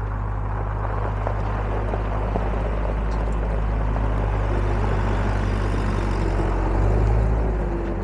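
Case 75XT skid steer's diesel engine running steadily as the loader drives and turns on gravel. It grows louder about seven seconds in, then eases off.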